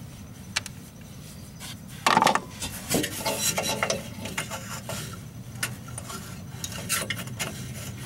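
Small metal clicks and scraping as a gas furnace's flame sensor is unscrewed and slid out of its mounting bracket, with a louder scrape about two seconds in.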